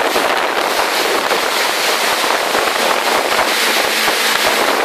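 Jet ski running at speed with a loud, steady rush of water from its wake and spray, and wind buffeting the microphone in rapid low thumps.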